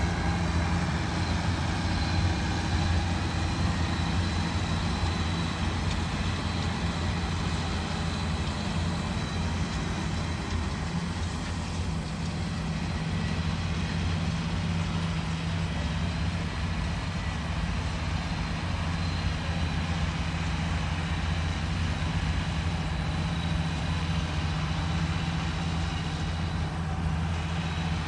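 A vehicle engine idling steadily, a low even hum that holds without change.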